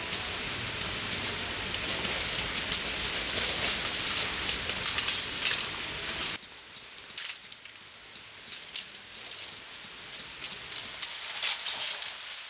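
Steady rain falling, with scattered sharp drops landing close by. About six seconds in it cuts abruptly to a quieter stretch of rain.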